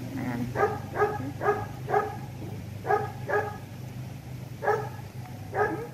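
Baby macaque giving short, repeated high calls, about eight of them, some in quick pairs, over a steady low hum.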